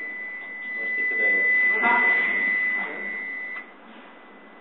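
Steady high-pitched whine from a small Eurobot competition robot as it drives and turns. The whine cuts off suddenly about three and a half seconds in, when the robot comes to a stop.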